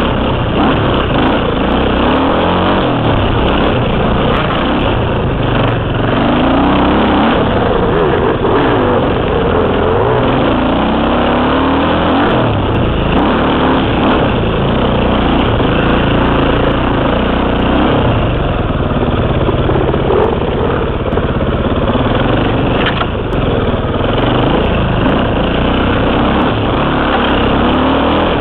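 Two-stroke KTM 300 dirt bike engine running hard, its pitch rising and falling again and again as the throttle is worked on and off.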